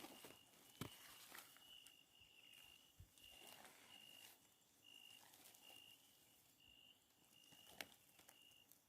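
Near silence. A night insect is chirping faintly, short high chirps repeating a little more than once a second, with a couple of soft clicks.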